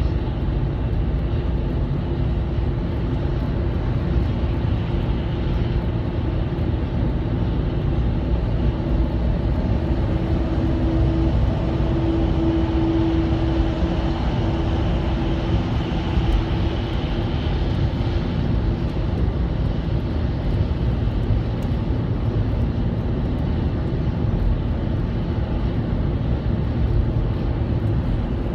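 Albach 2000 self-propelled woodchipper driving at highway speed, about 80 km/h: a steady drone of engine and road noise. A hum within it grows louder for a few seconds about halfway through.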